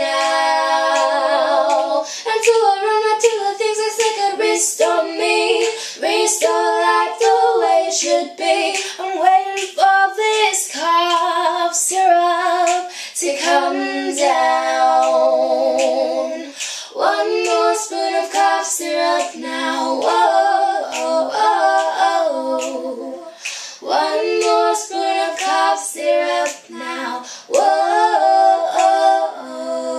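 Teenage girls singing a pop song cover, with several long held notes among shorter sung phrases.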